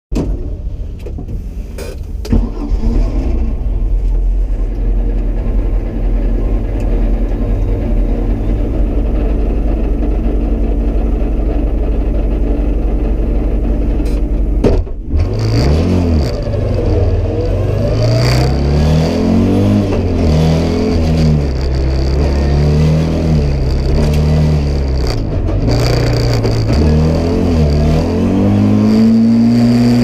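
Audi Sport Quattro S1 rally car's turbocharged five-cylinder engine, heard from inside the cabin. It runs steadily for the first half, then, about halfway through, its note begins rising and dropping over and over as the car accelerates hard through the gears.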